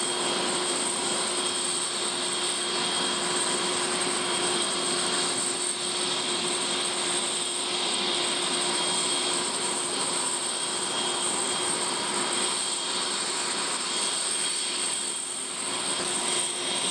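Aircraft turbine running steadily: an even rushing noise with a constant whine held at one pitch, and several high tones over it.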